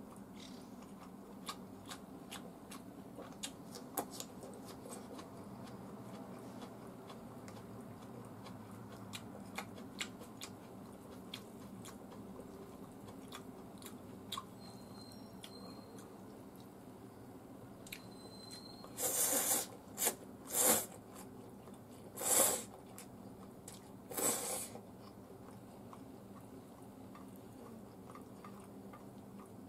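A person eating cold ramen noodles with chopsticks: small clicks and chewing sounds, then four loud, short slurps of noodles spread over a few seconds about two-thirds of the way through.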